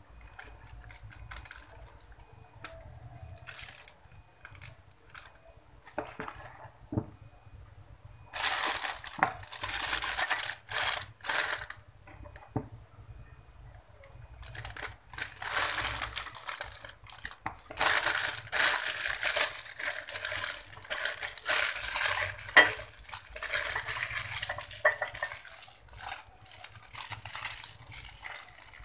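A clear plastic piping bag crinkling and rustling as it is handled and filled with cake batter, with a rubber spatula scraping and tapping against the bowl. It starts with scattered small clicks, and after about 8 seconds it becomes long stretches of dense crinkling, with a pause in the middle.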